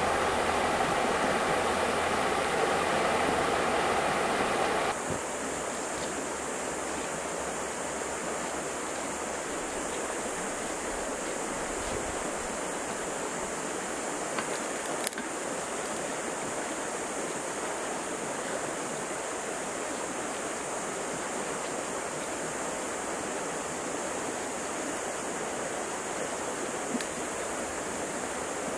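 Steady rushing noise like running water, which changes abruptly about five seconds in to a quieter, higher hiss. A few faint ticks come near the middle and near the end.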